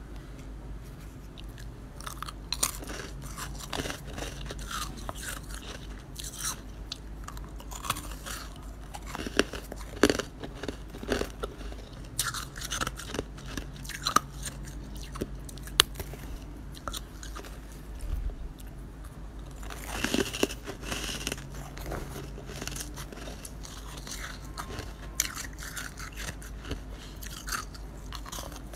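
Someone biting and chewing freezer frost in close-up: crisp, irregular crunches throughout, with a denser run of crunching about twenty seconds in.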